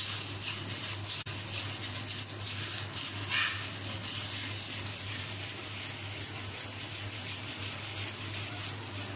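Steady rushing hiss over a low electrical hum, with soft handling noise as hands squeeze and roll moist cake-crumb mixture into balls right by the microphone. There is a single sharp click about a second in.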